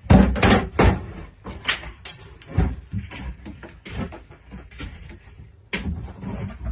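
Irregular knocks and clattering, as of things being handled and bumped, with several loud ones in the first second and scattered ones after.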